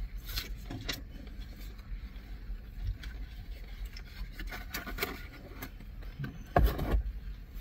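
Close-up eating sounds: chewing and mouth noises while burgers are handled, with small scrapes and rustles of the sandwich wrapping in a car cabin. A louder knock or rustle comes near the end.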